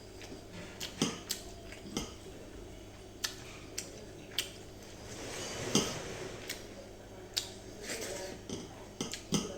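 Cutlery clinking and tapping against a dish while eating: a dozen or so sharp, irregularly spaced clicks.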